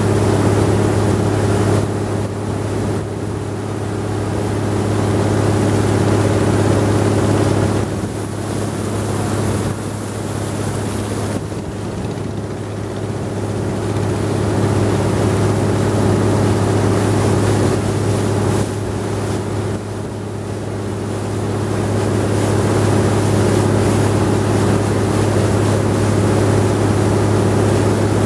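Wooden river boat's engine running steadily under way, a noisy, unbroken drone, with the rush of water and wind over it.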